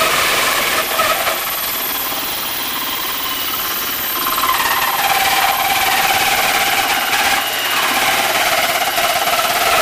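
Cordless drill running a 1¼-inch hole saw that cuts into the two-layer sheet-metal lid of an ammo box, with a steady grinding whine that gets a little louder and higher about halfway through. The saw is still working through the lid's top layer.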